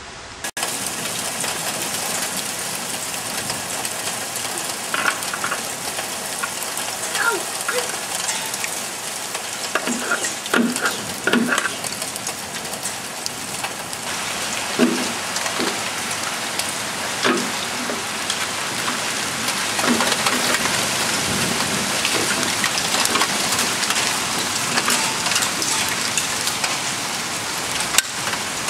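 Heavy hail and rain pelting down: a dense, steady hiss full of small sharp impacts, with a few brief louder sounds in the first half.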